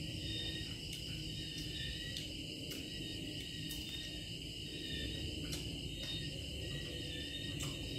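Insects chirping steadily in a continuous high-pitched chorus, over a low background hum, with a few faint clicks.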